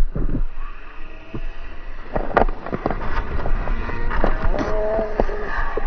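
Wind rumbling on an outdoor microphone, with many sharp knocks and clicks scattered through it and a short steady tone about four and a half seconds in.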